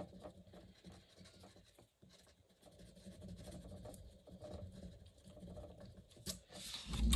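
Pencil rubbing on paper in short back-and-forth strokes, blending layers of coloured pencil: a faint scratching that pauses briefly. A louder low bump comes near the end.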